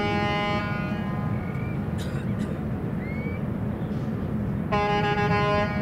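A horn sounds a steady chord over a continuous low rumble. It cuts off about half a second in and blows again abruptly near the end for about a second. Two short rising chirps come in the gap.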